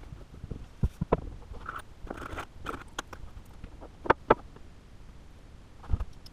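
Scattered light knocks, clicks and short scrapes of hand work on a wooden workboard: a piece of PVC pipe being set in place on a wooden base and a cordless drill being handled, with two sharper knocks about four seconds in.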